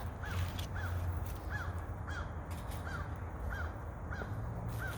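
A bird calling over and over, a short high chirp repeated about every half second, over a steady low background hum.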